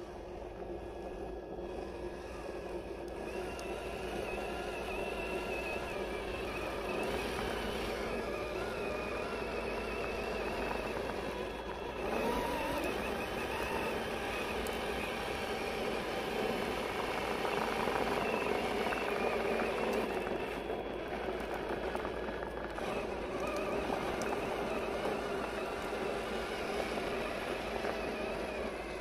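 Brushed 540-size electric motor and geared drivetrain of a 1/10-scale RC rock crawler whining as it crawls under load up a steep dirt slope. The whine rises in pitch about twelve seconds in.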